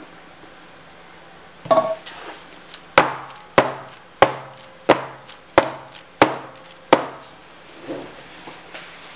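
Wooden soap loaf mold, filled with freshly poured cold process soap batter, knocked down on the work table: one thump, then seven sharp wooden knocks at an even pace of about three every two seconds, then a few softer bumps near the end. Tapping the filled mold like this settles the batter and knocks out trapped air bubbles.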